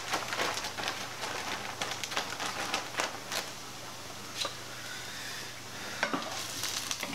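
Mushrooms frying in grease in stovetop skillets: a steady sizzle with scattered crackling pops, and a spoon stirring in a pan about six seconds in.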